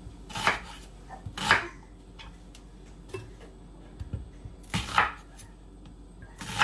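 Chef's knife cutting through a peeled onion and striking a wooden cutting board: four sharp, crisp cuts spaced unevenly, with a few light taps between.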